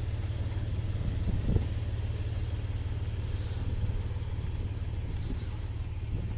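Jeep Wrangler JKU engine idling steadily, with a brief knock about one and a half seconds in.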